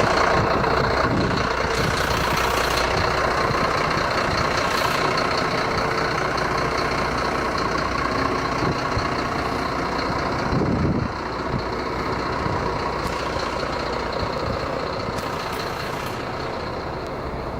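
Mercedes-Benz Actros 2536 truck running steadily at idle, with a few short hissing bursts. About ten seconds in there is a brief low rumble, after which the running sound drops a little.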